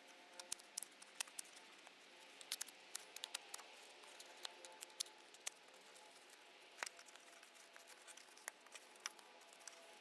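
Faint, irregular clicks and light rustling of scissors and foam pipe insulation being handled against a plastic car grille, as slits are snipped in the foam and it is pressed into the grille slots. The clicks come thick for the first five seconds or so, then thin out.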